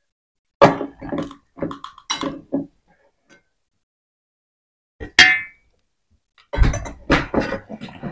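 Stainless steel plates and bowls clinking and knocking on a table, in scattered short strokes, with one ringing metal clink about five seconds in and a quick run of knocks near the end.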